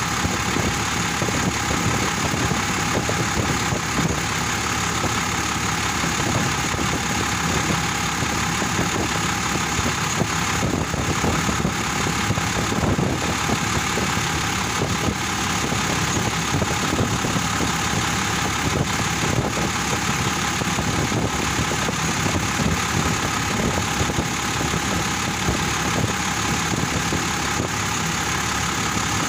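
Vehicle engine idling steadily, with the air conditioning running while refrigerant is charged through the low-pressure side.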